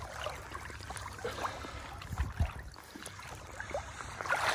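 Water lapping and dripping around a kayak moving through a still marsh channel, with a couple of soft low thumps a little over two seconds in.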